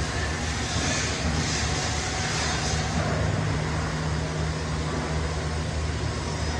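TIG welding arc on thin-walled 304 stainless steel pipe: a steady hiss with a constant low hum underneath, unbroken throughout.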